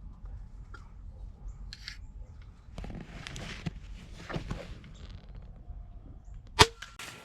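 Soft rustling of movement, then a single sharp crossbow shot near the end. The shot misses, which the hunter blames on a scope that had not been checked.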